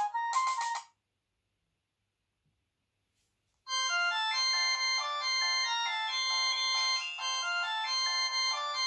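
HTC Advantage X7500 ringtones: one tune cuts off about a second in, and after two to three seconds of silence the next ringtone starts, a melody with several notes sounding at once.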